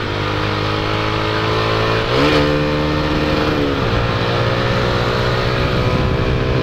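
Motorcycle engine running under way at steady revs. Its pitch rises about two seconds in and falls back again a little under two seconds later.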